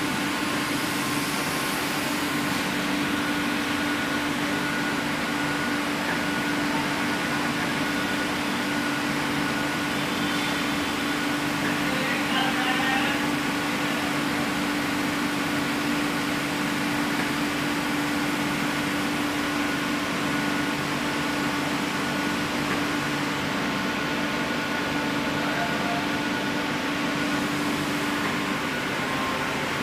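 Steady hum of an HDPE pipe extrusion line running: a constant low drone with a fainter higher whine over it.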